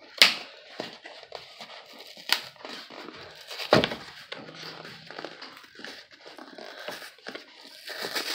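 Taped cardboard box being pried and torn open by hand: scraping and scratching of the cardboard flaps, with a few sharp knocks.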